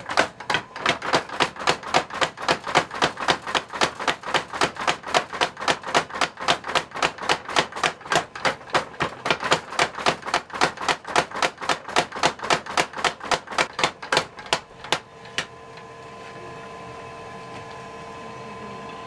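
Mechanical power hammer forging a red-hot kanna (Japanese plane) blade blank, striking in a fast, even run of about five or six blows a second. The blows stop about 15 seconds in, leaving a steady hum.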